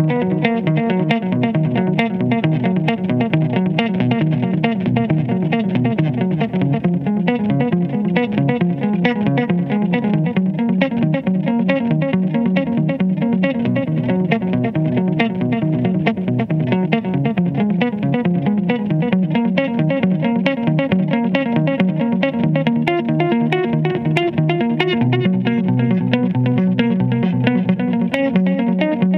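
Stratocaster-style electric guitar played instrumentally: a steady stream of quickly picked notes, with lower held notes near the end.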